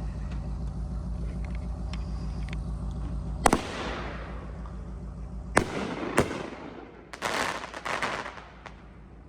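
Full Blown firework cake firing: a sharp shot about three and a half seconds in, two more around five and a half and six seconds, then a quick cluster of bangs near the eight-second mark. A steady low hum runs underneath.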